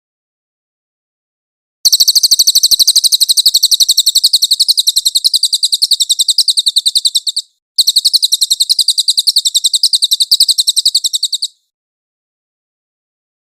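Cililin songbird singing a loud, very fast trill of high, sharp repeated notes in two long runs, about five seconds and then about four seconds, with a short break between them.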